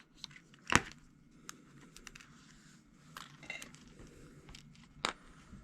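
Thin styrene plastic tubing being cut into sections on a workbench: two sharp snaps as the blade goes through, one under a second in and one near the end, with faint ticks and handling in between.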